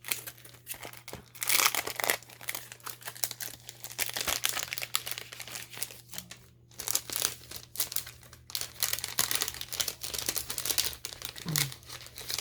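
Paper craft pieces rustling and crinkling as they are handled and sorted through by hand, in uneven flurries that are loudest about a second and a half in.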